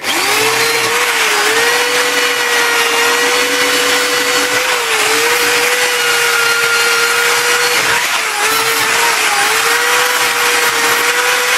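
Electric drill running with a wire brush attachment, scrubbing surface rust out of a steel seat runner's channels down to bare metal. A steady motor whine over a gritty scratching, the pitch sagging briefly a few times as the brush is pressed in.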